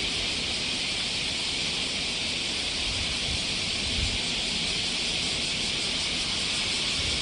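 Steady high-pitched drone of a summer cicada chorus, with a low rumble of wind on the microphone underneath.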